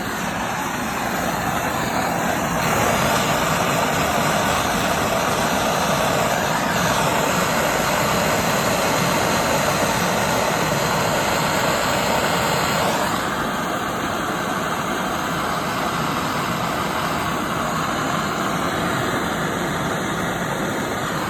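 Brazing torch flame burning steadily as it heats the pinched, fluxed end of a copper pipe for a pinch braze. The flame sound grows louder about three seconds in and changes tone near the middle.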